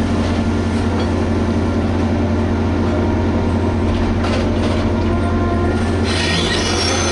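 Liebherr HS8200 dragline's diesel engine running steadily with a deep hum. A high-pitched squeal joins in near the end.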